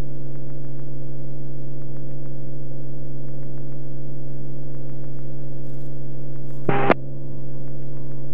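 Beechcraft Bonanza F33's six-cylinder piston engine and propeller droning steadily in cruise, heard in the cabin as an even, low hum. There is a brief burst of noise about seven seconds in.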